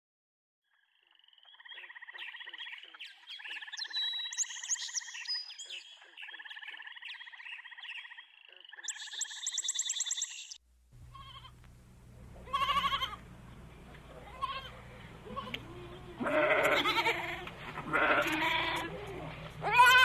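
Animal calls in two parts: first a rapid pulsing trill repeated in bursts of a second or two, then, after a short break, a different animal's calls that bend up and down in pitch, over a low steady hum.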